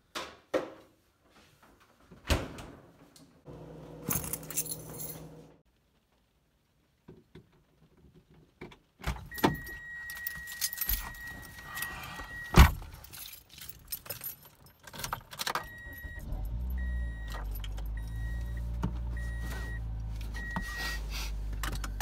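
Fridge door and bottles handled in the first few seconds, then car sounds: keys jangling, a steady dashboard chime ending in a loud thump, and the Toyota's engine starting about three-quarters of the way through and idling while a warning chime beeps about once a second.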